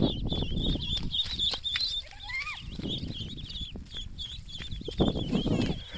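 A flock of ducklings peeping continuously in many short, high chirps, with one lower rising call about two seconds in. A duller low noise comes in at the start and again about five seconds in.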